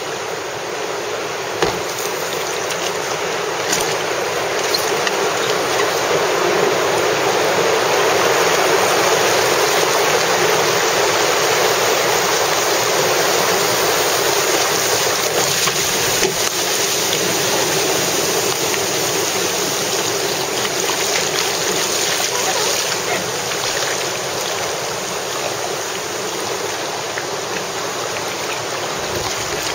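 River water rushing through rapids around an open canoe: a steady rush that grows louder around the middle, with a few sharp knocks.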